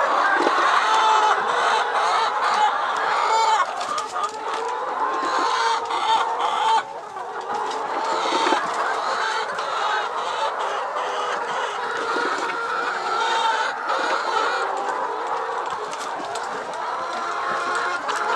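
A flock of laying hens clucking continuously, many overlapping calls, with a few light clicks and knocks among them.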